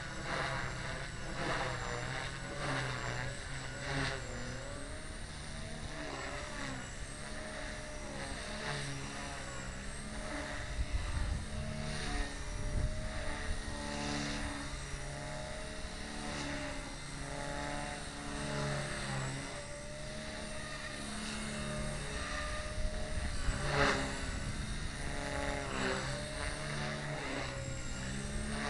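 Align T-Rex 250 electric RC helicopter in flight: the motor and rotor whine rises and falls in pitch as it is thrown through aerobatic manoeuvres, with brief swishes from the blades.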